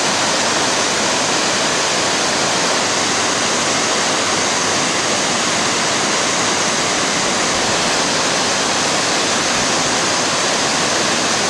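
Waterfall crashing into its pool below: loud, steady roar of falling water and spray that hardly changes.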